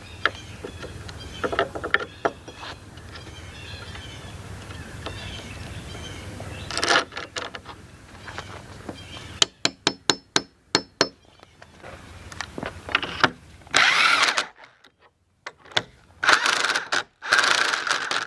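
Impact drill driving a lag bolt into a log floor joist in several loud bursts with short pauses, near the end. It comes after a quick run of about ten sharp metallic taps a few seconds earlier.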